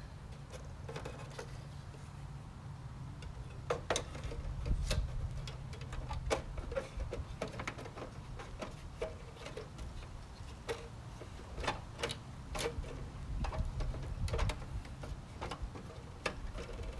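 Irregular light clicks and taps of a small hand tool and screws being worked on the back of a gauge cluster while the temperature gauge's mounting screws are snugged up, over a low steady hum.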